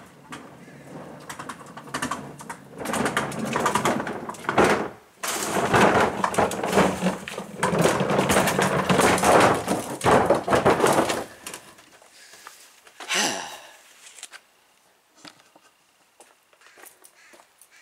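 Homelite electric chainsaw running and cutting through a tree branch, its motor hum under a harsh rasping of the chain in the wood, with a short break partway through. The saw stops abruptly, and a brief swishing sound follows a little later.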